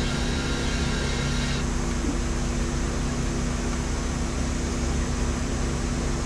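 Steady machine hum with a low drone and even hiss, like a running fan. The higher part of the hiss drops away about one and a half seconds in. Hand-threading the fitting adds no clear sound.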